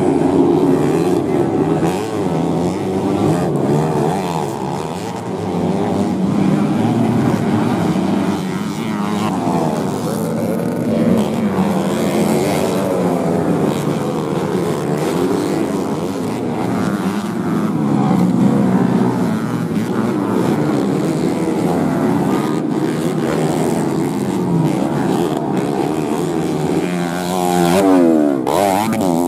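Several modified underbone racing motorcycle engines revving hard, their pitches rising and falling and overlapping as the bikes race around a dirt grasstrack. Near the end one bike passes close in a quick rising-then-falling sweep of engine pitch.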